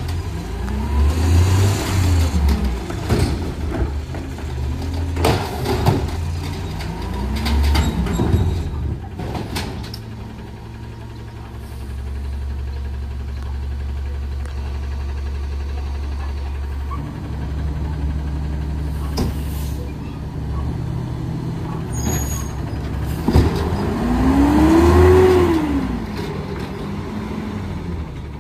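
CNG engine of a 2011 Peterbilt 320 garbage truck with an Amrep automated side loader, revved hard three times while the hydraulic arm lifts and dumps trash carts. Each rev rises and falls in pitch, the last one, near the end, the loudest. Between revs the engine settles to a steady hum, with clanks of the carts and short air hisses.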